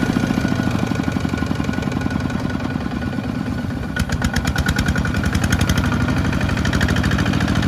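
Two-wheel walking tractor's single-cylinder diesel engine chugging hard under load, a fast, even beat of firing strokes as it hauls a loaded rice trailer through deep mud. The beat slackens slightly, then picks up sharply about four seconds in.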